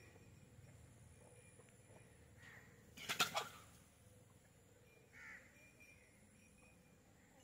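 A crow caws once, briefly, about three seconds in, over a quiet outdoor background; a fainter, shorter sound follows about two seconds later.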